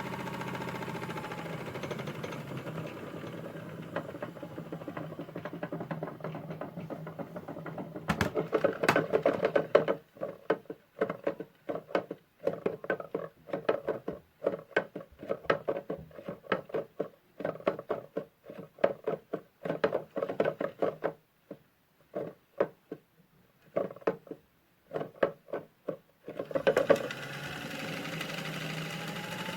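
Small electric motor of a toy washing machine running with a steady hum. About eight seconds in it breaks into a long stretch of rapid stuttering clicks and pulses with brief silent gaps. It then settles back into a steady hum whose pitch rises near the end.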